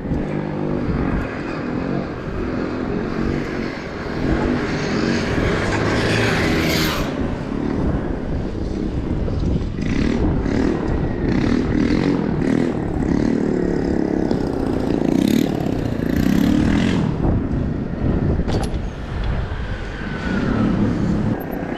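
Wind rushing over an action camera's microphone on a bicycle moving down a city street, mixed with tyre and traffic noise, gusting harder at times in the middle.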